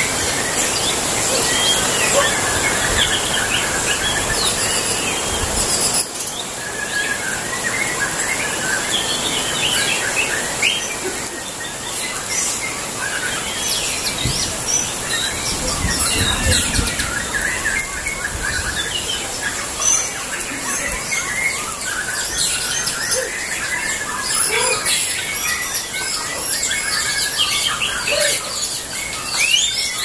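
Many caged white-rumped shamas (murai batu) singing against each other in a songbird contest: a dense, continuous chorus of overlapping whistles, trills and chirps.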